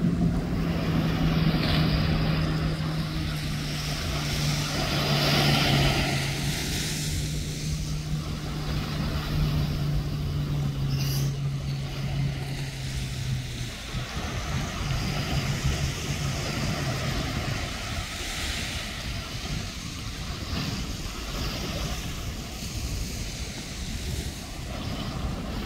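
Motorboat engine running with a steady low hum that slowly drops in pitch and fades out about halfway through, over a wash of wind and waves.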